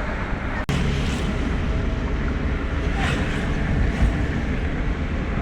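A motor vehicle running steadily, a low engine and road rumble, with a brief break about two-thirds of a second in.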